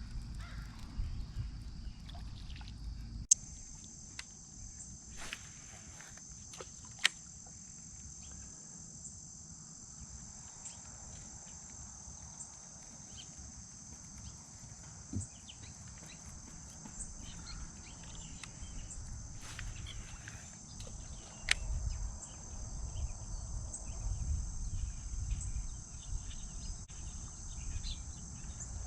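Steady high-pitched chorus of insects such as crickets, with a few sharp knocks, the loudest about three, seven and twenty-one seconds in, over a low rumble.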